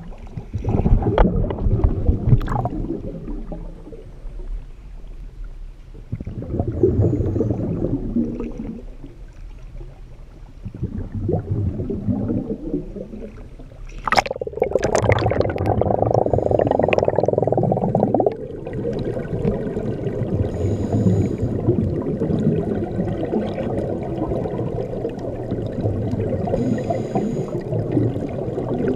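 Sea water sloshing and washing over a waterproof camera housing at the surface in surges every few seconds, with a sudden splash about halfway. Then, underwater, a steady muffled rush with two short bursts of scuba exhaust bubbles.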